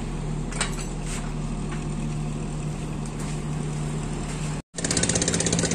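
Steady hum of a running motor with two light clicks a little over half a second in. After a brief dropout near the end, a louder steady running noise follows.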